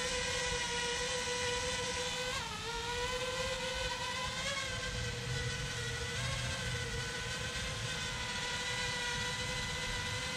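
Feima Robotics J.ME quadcopter drone hovering: a steady whining hum from its motors and propellers. The pitch dips briefly about two and a half seconds in and wavers again a couple of seconds later as the motors adjust.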